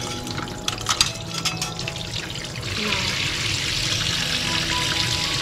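Wet splashing and clicks as a raw chicken is rubbed in a stainless-steel sink, then a tap running steadily onto it from about three seconds in.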